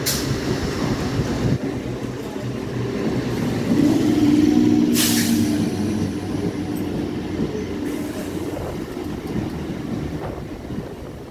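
Electric multiple unit local train running past along the platform, its coaches and wheels rumbling steadily on the rails, with a humming tone swelling around the middle and a brief hiss about five seconds in.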